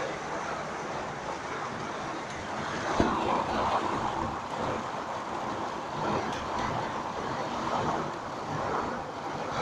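Storm noise: a steady rushing of wind that swells and eases, with one short sharp knock about three seconds in.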